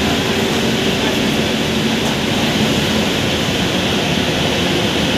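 Leyland BS-III bus's turbocharged diesel engine running steadily under way, heard from inside the cabin along with road noise.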